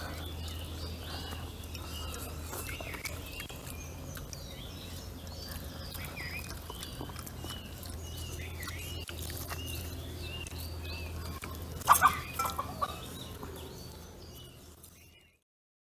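Birds calling over and over in short chirps over a steady low hum, with one short loud burst about twelve seconds in; the sound fades out near the end.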